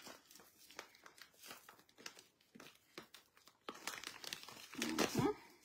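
Plastic bag of loose glitter crinkling as it is twisted and handled, in short irregular rustles and crackles while the knotted top is worked open.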